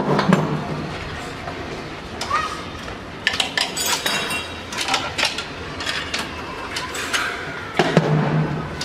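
Irregular metallic clicks and clinks of a flaring tool and flaring block being worked on copper AC pipe to form a flare, with a heavier knock at the start and another near the end.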